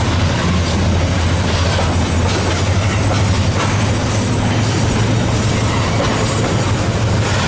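Freight wagons loaded with shipping containers rolling past close by: a loud, steady rumble of steel wheels on the rails under a constant low drone, with a few faint clacks.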